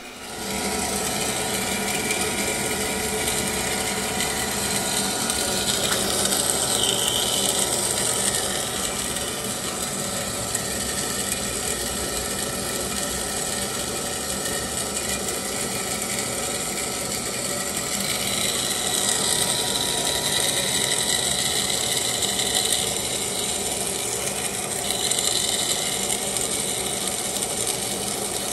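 Hydmech DM-10 double-miter metal-cutting bandsaw running free with no cut, its blade travelling through the guides with coolant flooding over it; a steady mechanical running noise.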